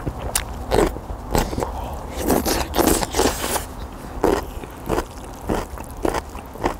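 A person eating instant noodles (spicy Teumsae ramen mixed with Chapagetti): a run of short chewing and slurping mouth sounds, with a longer noisy stretch of slurping about two and a half to three and a half seconds in.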